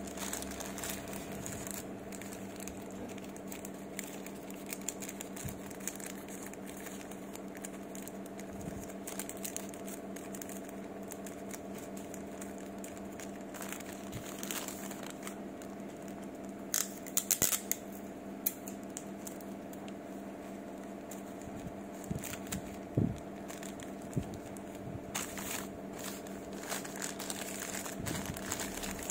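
Burger wrapping paper crinkling and rustling as it is folded around a sandwich by hand, in scattered crackles, the loudest a little past halfway. A steady low hum runs underneath.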